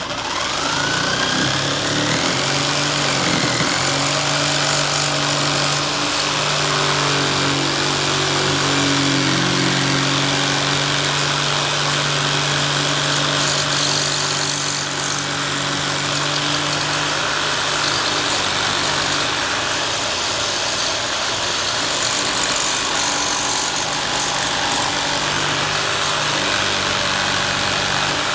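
Electric jigsaw starting with a rising whine, then running steadily as it cuts a sheet of Lexan polycarbonate.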